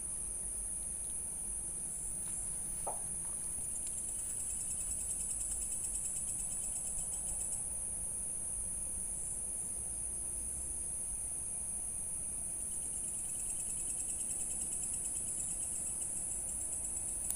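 Crickets and other night insects chirping: a steady high shrill drone, with pulsed trills joining in twice. A single short chirp sounds about three seconds in.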